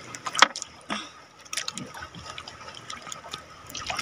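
Water dripping and splashing lightly in small irregular drops, with one sharper splash about half a second in.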